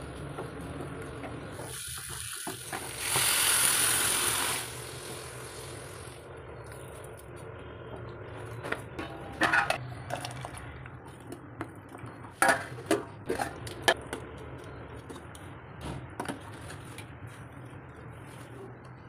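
Curry being cooked in a steel pot. A loud rushing hiss lasts about two seconds near the start, then a metal ladle scrapes and clinks against the pot several times, over a steady low hum.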